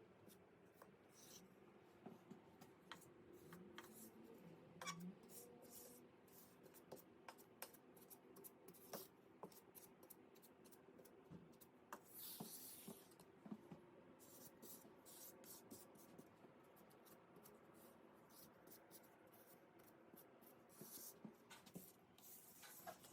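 Faint scratching and clicking of a hand tool working over a tiled counter's grout lines, in short irregular strokes with a longer scrape about halfway through.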